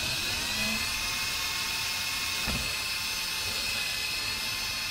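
Ryobi cordless drill spinning a step bit to clear out a pre-drilled hole, a steady high whine that picks up speed briefly at the start and then holds.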